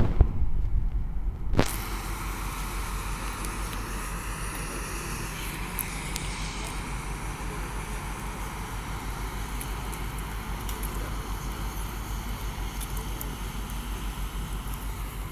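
Diesel engine of a small harbour passenger launch running steadily as it pulls away from the pier, a low, evenly pulsing rumble. In the first second or two there are a few louder bumps and a sharp click on the microphone.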